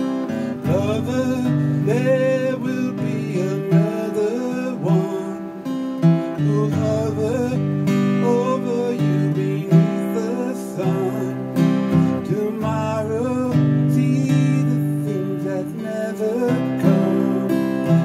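Acoustic guitar strummed in a slow song, with a man singing along to it.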